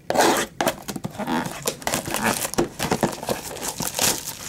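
Plastic shrink wrap on a trading-card box crinkling and tearing as it is ripped open, a rapid irregular crackle.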